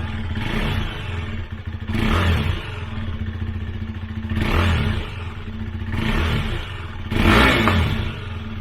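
KTM Duke 390 single-cylinder engine running through its stock exhaust: a steady idle with four short throttle blips that rise and fall. It sounds tinny, like a tin can.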